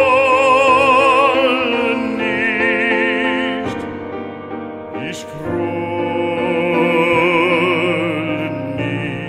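Background music in operatic style: a singer holding long notes with wide vibrato over a sustained accompaniment, in several phrases with short breaks between them.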